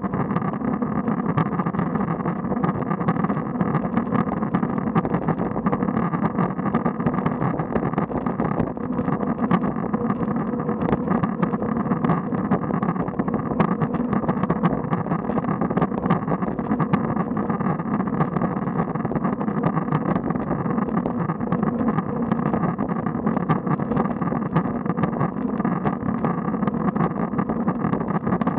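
Steady rumble of a road bicycle rolling on asphalt, picked up by a camera mounted on the bike, with many small rattling clicks from the bike and the road surface.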